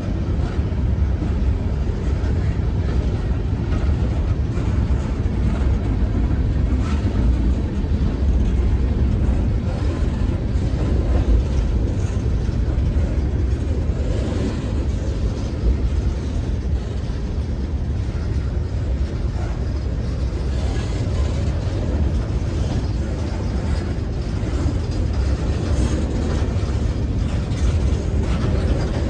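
Train rolling past on the rails: a steady low rumble with faint scattered clicks from the cars and wheels.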